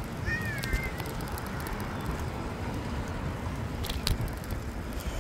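Steady low rumble of a moving bicycle, with wind on the microphone and tyre noise on the road. A brief wavering whistle comes about half a second in, and there are a couple of sharp clicks about four seconds in.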